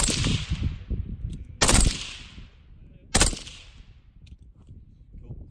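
Three suppressed rifle shots about a second and a half apart, each a sharp crack followed by a fading echo.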